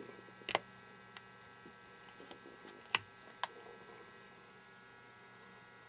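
A few small, sharp clicks of the laptop display cable's connector and the surrounding plastic being handled as it comes out of the screen's socket, the loudest about three seconds in, over a faint steady hum.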